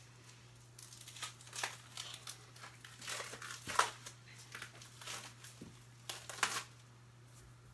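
Plastic meat packaging crinkling and rustling in irregular bursts as raw ground meat is unwrapped and handled over a pot, loudest near the middle and again near the end.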